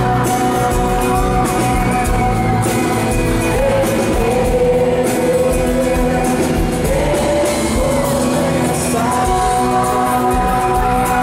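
Live pop-rock band performance with a singer holding long sung notes over the band.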